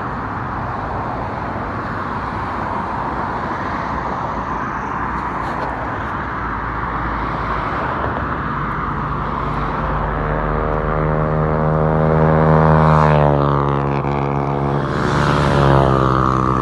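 Steady hum of highway traffic, tyres on the road. From about halfway a vehicle's droning engine note swells, peaks and drops in pitch as it passes, and another vehicle passes near the end.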